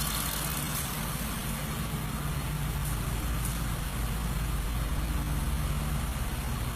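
A vehicle engine idling steadily, a low even hum with no changes in speed.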